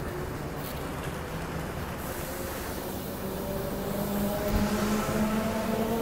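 Intercity V-set double-deck electric train pulling out, its traction motors starting to whine over the rolling noise. The whine and overall sound grow louder through the second half.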